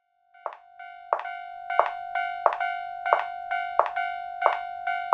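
Japanese railroad crossing warning bell ringing its 'kan-kan', starting about half a second in: loud strikes about every two-thirds of a second with softer ones between, the ring carrying on steadily from one strike to the next.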